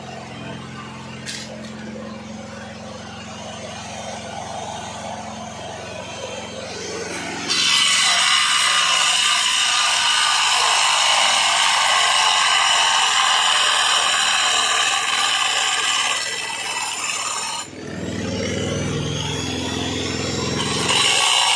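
Electric angle grinder with a cutting disc slicing a ceramic tile into strips: a loud, high grinding whine that starts suddenly about seven seconds in, eases briefly near the end and then comes back. Before it, a lower steady hum.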